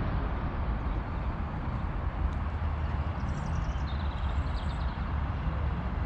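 Outdoor town ambience: a steady low rumble with a few faint, high, short chirps a little past the middle.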